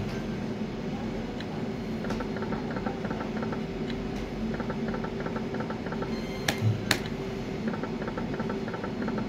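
Video slot machine running free spins: repeated groups of quick, high electronic ticks as the reels spin and stop, over a steady low hum, with two sharp clicks about six and a half and seven seconds in.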